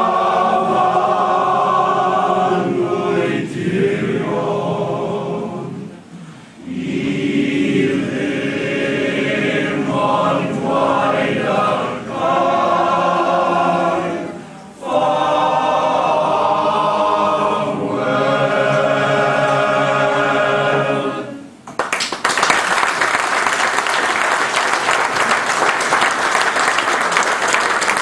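Welsh male voice choir singing together in several parts. About three-quarters of the way through the song ends and the audience breaks into loud applause.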